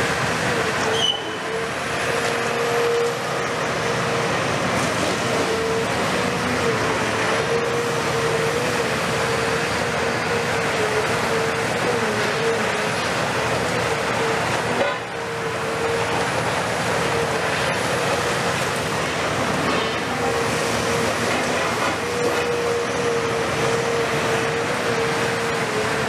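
Cat 340F UHD high-reach demolition excavator working under load, its Cat C9.3 diesel and hydraulics running with a steady whine, while its jaw breaks concrete from a building's upper floors.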